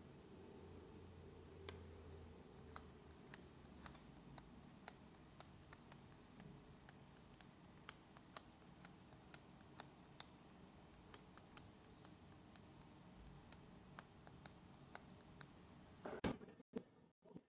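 Light ticking taps about twice a second as a Spigen dust-removal sticker is dabbed onto and lifted off the Google Pixel 8's glass screen, ending in a short louder rustle.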